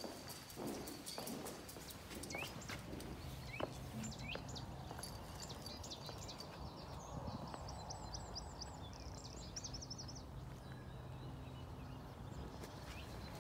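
Small birds chirping, with a quick run of high trilled notes about seven to ten seconds in, over a faint low hum and occasional footsteps.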